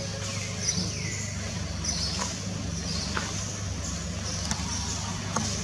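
A steady low engine-like hum, with short high-pitched chirps and squeaks over it, one sliding down in pitch about a second in, and a few faint clicks.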